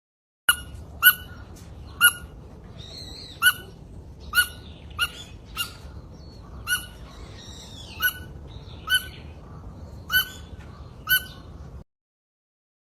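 Mouse squeaking: about a dozen short, sharp, high-pitched squeaks, roughly one a second, over a steady background hiss. They start about half a second in and stop a second before the end.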